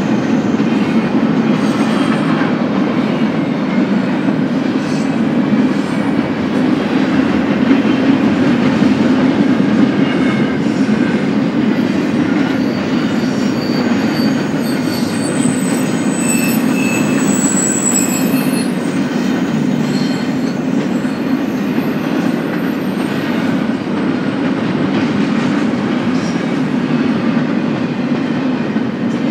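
BNSF intermodal freight train's cars rolling past, a steady loud rumble and rattle of wheels on rail. Thin, high wheel squeals come and go from about 13 to 18 seconds in.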